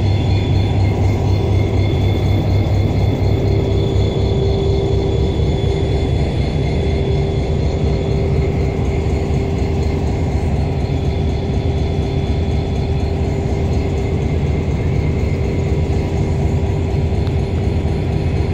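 HGMU-30R diesel-electric locomotive running steadily as it moves slowly along the track: a deep, even engine drone with a steady whine above it.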